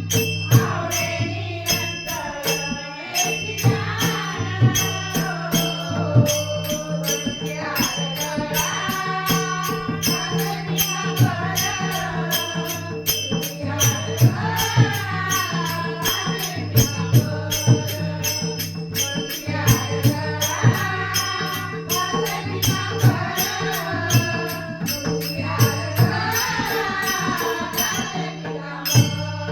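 Marathi devotional bhajan: a female voice sings a melodic line over a steady low drone, with mridang strokes and a fast, even ticking of small hand cymbals keeping the beat.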